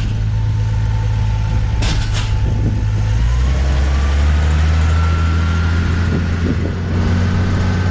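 Motor vehicle engine running steadily as it drives. Its low note drops to a deeper pitch about three seconds in, and a faint whine rises slowly after that.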